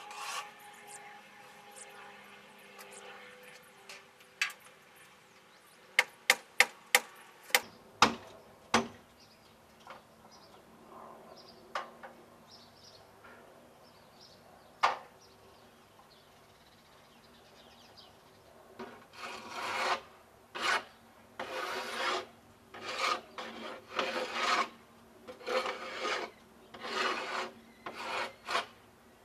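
Hen shifting in a wooden nesting box, her body and feet rustling and scraping the shredded bedding in a string of short bursts in the second half, with a quick run of sharp knocks on the wood about six to nine seconds in.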